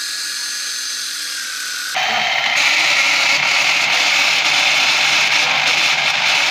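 Epson L130 inkjet printer making an abnormal steady mechanical grinding noise on power-up, like a rice-husking mill, which the uploader tags as a sensor problem. The noise gets louder about two seconds in and keeps going.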